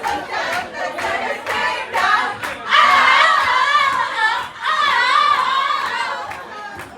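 A group of voices singing, with long wavering held notes from about three to six seconds in, over a steady beat of about two claps or knocks a second.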